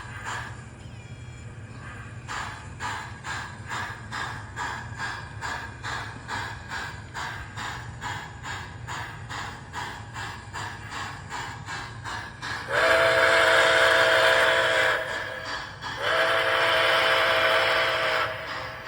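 MTH Nickel Plate Road 765 model steam locomotive's onboard sound system chuffing in an even rhythm over the low hum of the running model. Near the end it sounds two long steam-whistle blasts, each about two seconds, with a short gap between.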